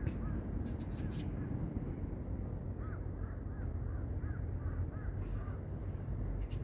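Strong wind buffeting the microphone in a steady low rumble, with a string of short bird calls, mostly between about three and five seconds in.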